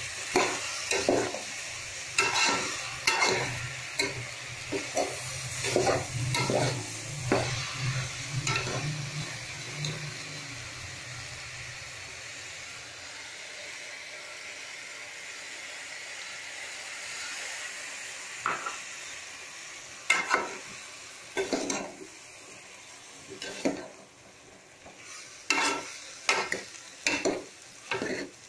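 Mixed vegetables sizzling as they fry in a pot, stirred and scraped with a metal spoon. The stirring strokes come in spurts through the first ten seconds and again near the end, with only the steady sizzle in between.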